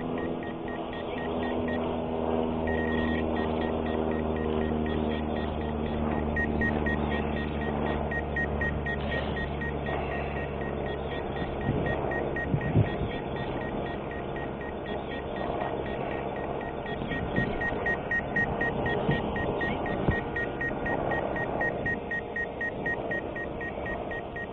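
A small quadcopter drone (DJI Mavic Air 2) hovering low with a steady propeller hum, while the engine of a manned aircraft droning overhead fades away over the first ten seconds or so. From about three seconds in, a rapid high beeping repeats without a break, the drone's warning of nearby manned aircraft.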